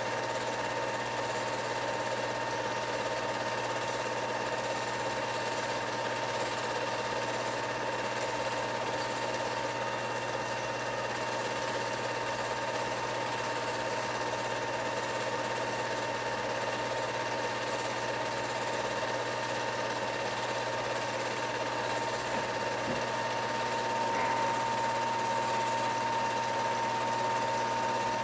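8mm movie projector running: a steady motor whir with a fast, even clatter from the film transport. A thin steady tone rides on top and grows a little louder about 24 seconds in.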